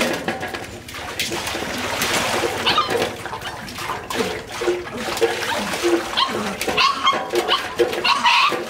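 Water poured from a metal bowl splashing over a wet puppy into an aluminium basin, in several pours, with the puppy giving short cries between them.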